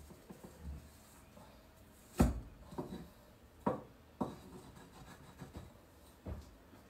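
Rim of a small glass jar pressed down through apple slices onto a wooden chopping board: about five sharp knocks of glass on wood with some faint rubbing, the loudest about two seconds in.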